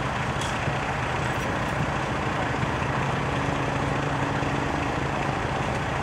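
Ambulance engine idling, a steady low hum.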